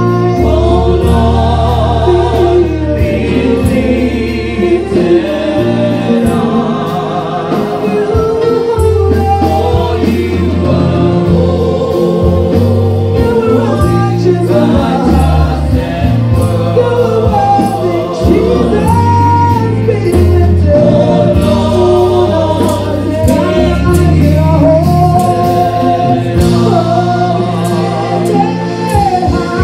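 Live gospel praise and worship music: voices singing long, wavering notes over instrumental accompaniment with deep sustained bass notes and a steady beat.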